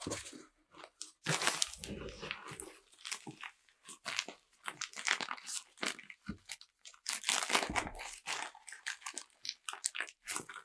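Irregular bursts of scraping and crunching from hand work on the car horn's metal parts, uneven in length and loudness.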